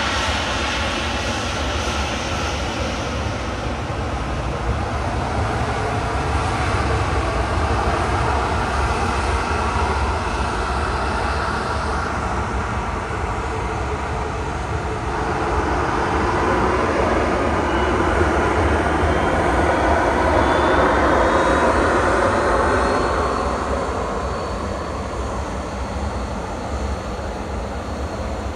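Jet airliner arriving, its engine noise steady and then swelling to a peak about twenty seconds in, with a thin rising whine, before easing off.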